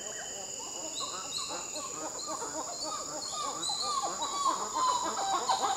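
Brown titi monkeys calling: a fast, overlapping run of short arched whooping notes that starts about a second in and builds, growing louder toward the end.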